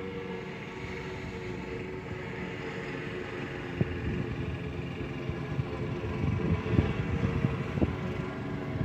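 Wind gusting against a phone microphone: low, uneven rumbling that starts about four seconds in and grows stronger, with a couple of light knocks. Under it runs a steady motor hum.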